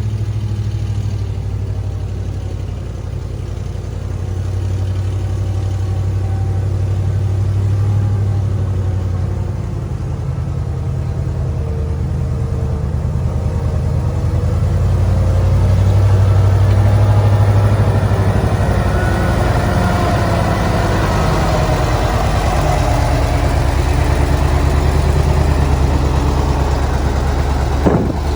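Diesel engine of heavy earthmoving machinery running steadily with a deep hum, growing louder from about halfway through with a rushing, clattering layer added as it works under more load. A single short knock near the end.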